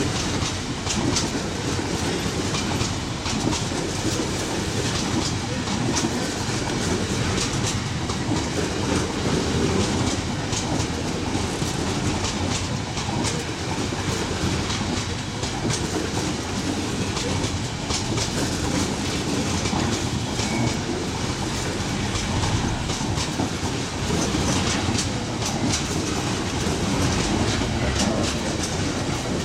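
Freight train of GBRf bogie hopper wagons rolling steadily past, a continuous rumble with the wheels clattering and clicking on the track.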